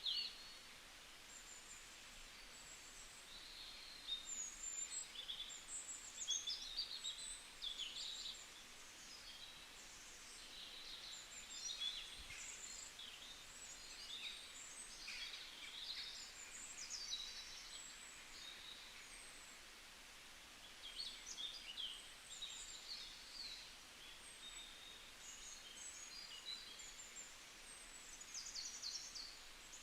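Several songbirds singing, with short high chirps and trills overlapping in bunches and brief lulls between them, over a faint steady hiss.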